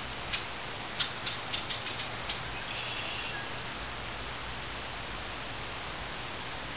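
American red squirrel cracking seeds with its teeth: one sharp click, then a run of about seven sharp clicks that come quicker and fainter.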